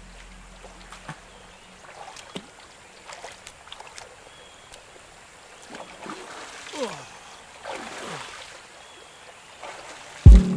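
Water splashing and trickling as a man wades waist-deep through a shallow stream, with scattered small splashes. Near the end comes a sudden, very loud low boom, and music starts.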